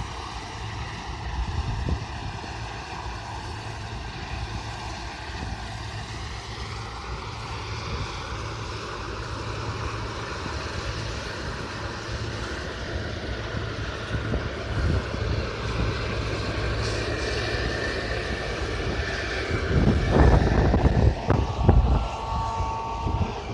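Combine harvesters cutting oilseed rape: a steady engine and threshing drone whose pitch drifts slowly as the machines move across the field. Low rumbling buffets hit the microphone near the end.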